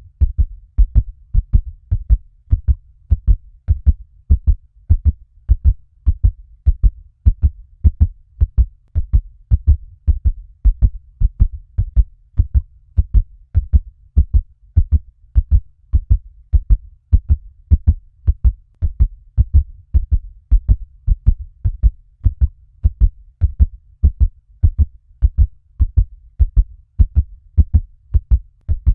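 Fast heartbeat: a steady, rapid rhythm of low, deep thumps repeating at an even pace.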